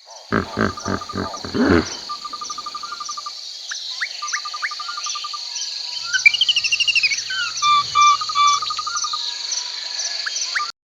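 Insects trilling and chirping in an even rhythm, with birds calling over them. It opens with a few loud, low pulsed calls and cuts off abruptly shortly before the end.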